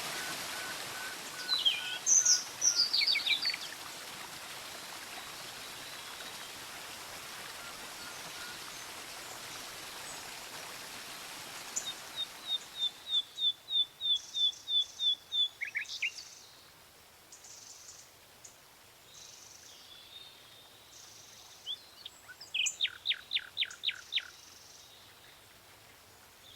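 Small birds singing over a steady rush of falling water, which fades partway through and leaves the birdsong clearer. One bird gives a quick run of about a dozen repeated notes, and another a fast trill of about eight notes near the end.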